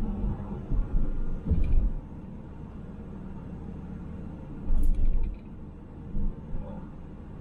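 Road noise inside a moving car: a steady low rumble of engine and tyres, with a few louder low thumps in the first two seconds and again about five seconds in, and a brief click near five seconds.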